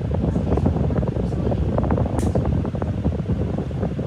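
Steady fan noise, with light clicks and taps as small laptop parts are handled on the desk; one sharper click comes about two seconds in.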